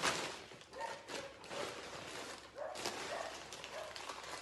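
Plastic parcel packaging rustling and crinkling as it is handled and opened, with a few short high whines in the background.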